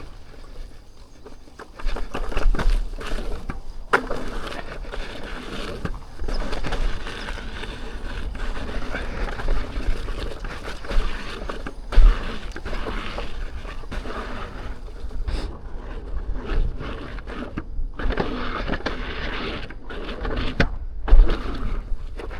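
Off-road electric unicycle riding over a rough dirt trail: the tyre rumbles over dirt and rocks, with scattered knocks and rattles and a few harder jolts.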